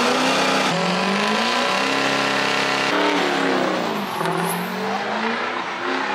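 Pickup truck engines held at high revs, with the pitch gliding up and down, as the trucks spin their rear tyres in burnouts and donuts. The sound changes abruptly about a second in and again about three seconds in, as one clip gives way to another.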